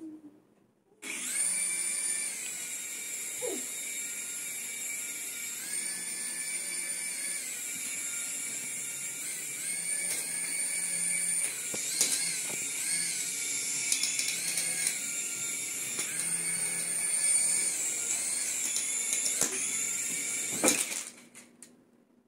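Small electric rotor motors of a toy infrared RC helicopter whining at a high pitch, starting about a second in, the pitch stepping up and down several times as the throttle changes. Near the end there is a sharp knock and the whine stops abruptly.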